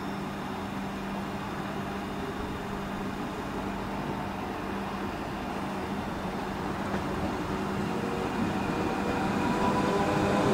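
Red Rhaetian Railway electric multiple unit approaching and pulling into the station. Its motor whine and running noise grow steadily louder over the last few seconds, over a steady low hum.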